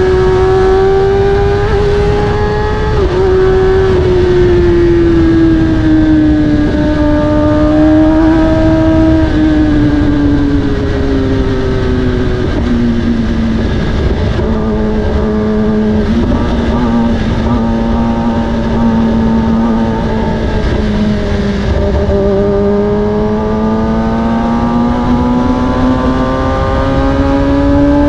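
Kawasaki ZX10R's inline four-cylinder engine through an Akrapovic carbon exhaust, running under way at moderate revs with a steady rumble underneath. Its note sinks slowly through the first half, holds low for several seconds, then climbs again near the end as the throttle opens.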